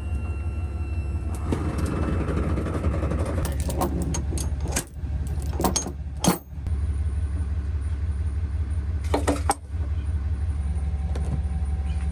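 An engine idling with a steady low hum, while metal hitch hardware and safety chain clink and jangle in a couple of short bursts, in the middle and again later.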